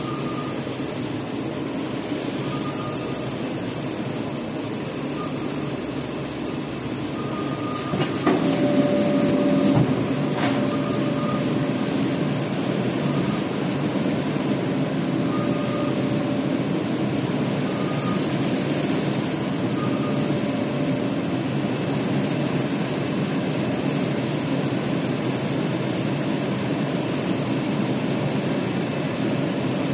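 Single-pass digital UV printer running, a steady mechanical noise that gets louder about eight seconds in, with a couple of sharp clicks around then and a faint short tone recurring every two to three seconds.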